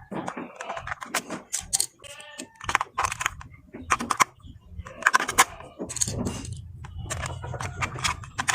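Hard plastic toy train pieces clicking and clattering as they are handled and fitted together, with a brief pitched sound about two seconds in.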